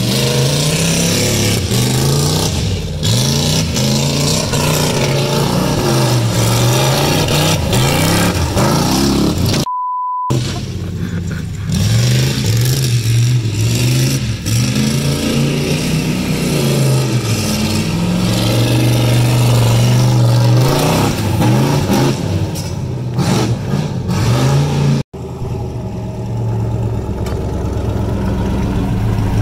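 Chevrolet C10 pickup's engine revving up and down again and again as the truck is driven hard across a dirt lot, its pitch rising and falling every second or two. About ten seconds in, a short steady electronic beep cuts in. After a sudden cut near the end, the engine runs more steadily at low speed.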